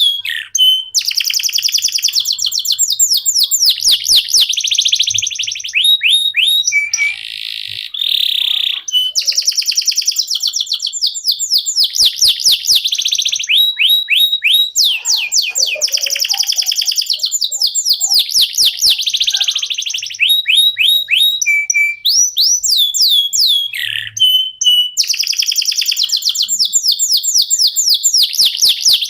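Canary singing a long, unbroken song of fast trills and runs of quick repeated sweeping notes, with only brief pauses.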